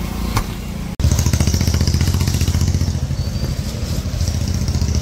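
An engine idling close by: a steady low rumble with a rapid, even pulse, starting suddenly about a second in.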